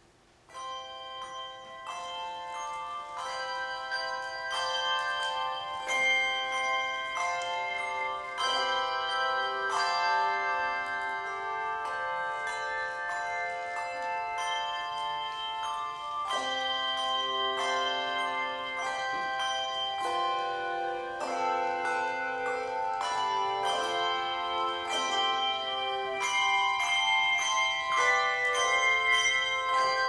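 Handbell choir ringing a Christmas tune: chords of handbells struck and left to ring, overlapping into sustained harmony. It begins about half a second in and grows a little louder near the end.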